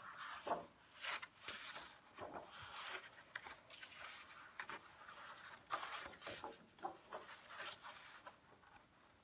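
Paper pages of a large illustrated book being turned by hand, making repeated dry rustles and brushing sounds that die down near the end.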